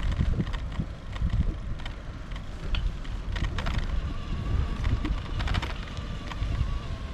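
Wind rumbling on the microphone of a camera carried on a moving bicycle, with scattered clicks and rattles from the bike over the path surface. A faint steady whine comes in about four seconds in.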